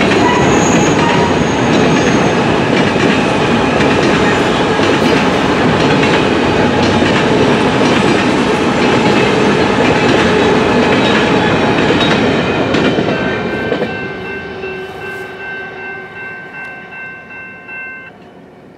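Empty covered grain hopper cars of a long freight train rolling past at speed. About two-thirds of the way through the sound fades as the tail end moves away, and a steady high ringing tone is left that dies out near the end.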